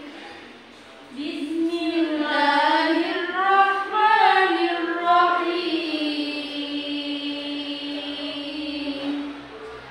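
A girl's voice chanting a melodic Qur'an recitation, with wavering, gliding phrases after a short pause at the start and a long held note near the end.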